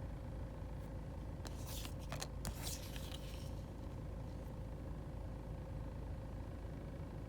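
Car engine idling steadily, with a few short rustling, scraping sounds between about one and a half and three and a half seconds in.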